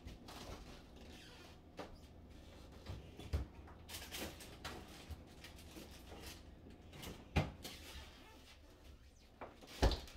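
Kitchen handling sounds during cooking: scattered knocks and clicks of items being set down and moved, with a stretch of rustling. The sharpest knocks come about two-thirds of the way in and just before the end.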